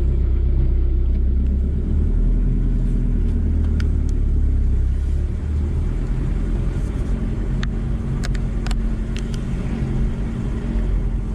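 VW T4 campervan driving along with a steady engine and road rumble; the engine note shifts about two seconds in and again around five to six seconds in.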